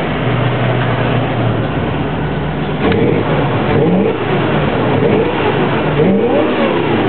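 1979 Chevrolet K5 Blazer engine running steadily at first, then revved with the gas pedal several times from about three seconds in, its pitch rising and falling with each blip of the throttle.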